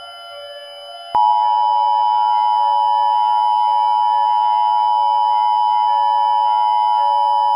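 Emergency Alert System attention signal: a loud, steady electronic tone that breaks off for about a second near the start, then comes back and holds steady.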